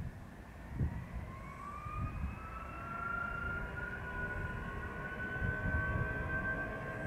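Jet2 Boeing 757-200's twin jet engines spooling up for the take-off roll: a rising whine that begins about a second in and grows louder, over wind buffeting the microphone.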